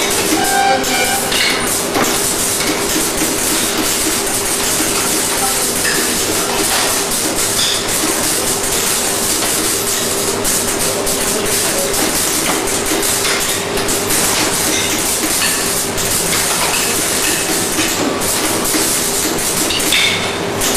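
Workshop machinery running steadily, a dense, even noise with a constant hum.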